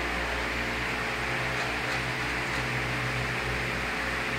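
9FC21 corn milling machine running steadily: an even whirring rush over a low electric-motor hum, with no change in speed.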